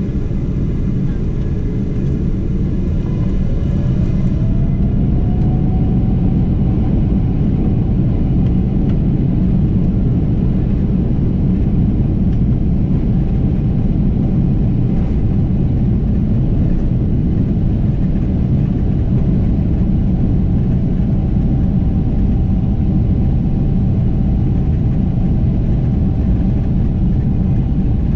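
Cabin sound of a Boeing 777-200ER's GE90 turbofans spooling up to takeoff thrust. A rising whine climbs during the first few seconds as the sound grows louder, then holds at one steady pitch over a heavy rumble.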